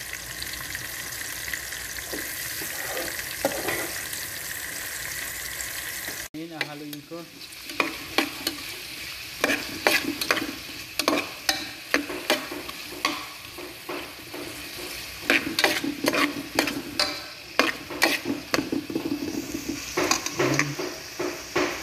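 Garlic, onion and ginger sizzling in hot oil in an aluminium pot. From about six seconds in, a metal spatula stirs them, scraping and knocking against the pot with frequent sharp clicks.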